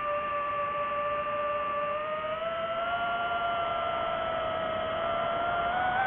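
DJI FPV drone's motors and propellers whining steadily in flight. The pitch rises a little about two seconds in and again near the end as the throttle goes up.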